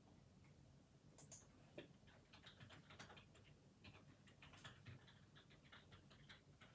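Typing on a computer keyboard: a quick, quiet run of key clicks lasting about four seconds, after a couple of computer mouse clicks about a second in.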